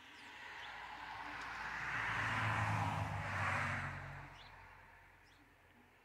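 A road vehicle driving past: tyre hiss and a low engine hum swell to a peak about two to three seconds in, then fade away. Faint bird chirps sound now and then.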